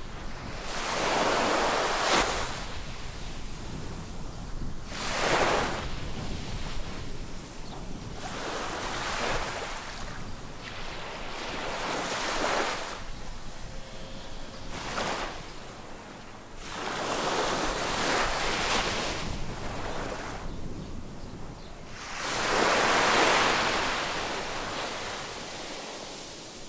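Small sea waves breaking and washing up on a sandy beach, each rush of surf swelling and falling away, one every three to five seconds, the last one the loudest.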